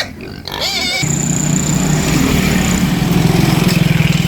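A small engine running steadily with an even pulsing beat, coming in about a second in.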